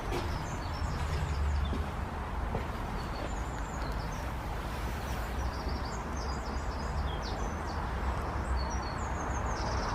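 Small birds chirping and singing in short, high calls over a steady low background rumble.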